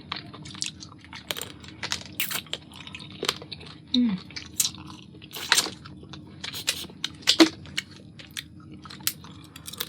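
Lobster being eaten: shell cracking and crunching, with wet chewing, as a string of irregular sharp clicks and crackles.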